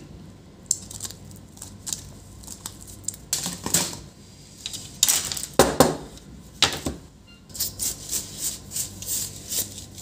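Clicks and short scrapes of plastic and metal as the bare top case and keyboard frame of an HP ProBook 450 G6 laptop are handled, with the old keyboard removed. After about seven and a half seconds these turn into a regular run of quick scratchy strokes, about two or three a second.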